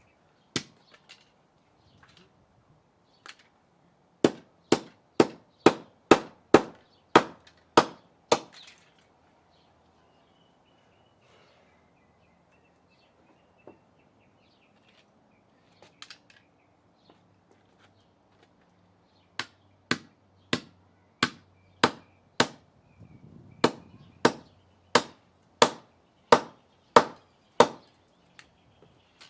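Hammer blows on the plastic casing of a Dell laptop power adapter: about ten sharp strikes, roughly two a second, starting about four seconds in, then a pause, then a longer run of about fifteen strikes in the second half.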